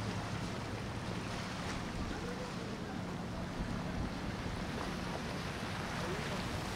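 Four Seven Marine 627 supercharged V8 outboards on a large center-console boat running slowly, a steady low drone over the wash of water.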